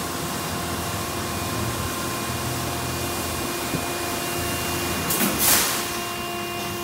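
High-pressure water spraying from a D&S Quicksilver touch-free car wash gantry onto a car: a steady hiss with a faint steady whine, and a louder rush of spray about five seconds in.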